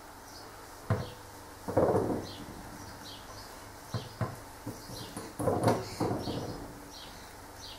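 Soft knocks and rustling from fingers placing grated cheese onto scones on a metal baking tray. The handling comes in scattered short knocks, with two louder bursts about two seconds in and again near six seconds.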